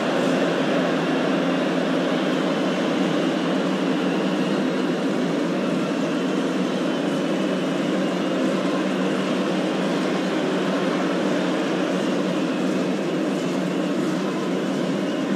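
Steady din of a large football stadium crowd, a dense continuous wash of voices with faint held tones mixed in.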